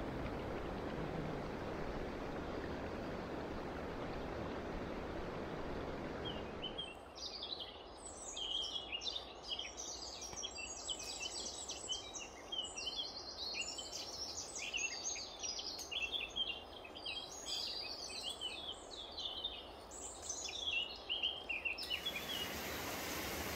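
Steady rushing of river water, which cuts off suddenly about seven seconds in to a chorus of songbirds, many overlapping chirps and warbles, with the water only faint beneath. The rushing water comes back near the end.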